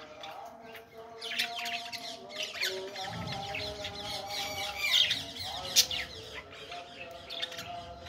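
A flock of budgerigars chirping and chattering, with quick high chirps thickest from about a second in until about six seconds, and a single sharp click near six seconds.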